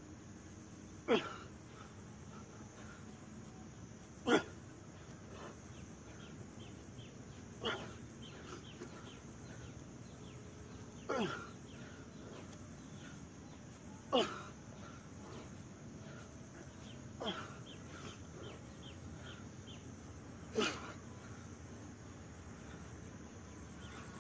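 An animal call repeated about every three seconds: a short cry sliding steeply down in pitch, seven times in all. Behind it runs a steady, faint, high pulsing chirr of insects, with a few small chirps in between.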